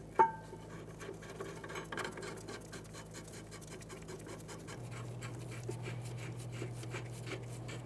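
Steel caliper bracket bolts being threaded in on a rear brake knuckle. A sharp metal clink with a brief ring comes first, then a run of faint clicks and light scraping over a low steady hum.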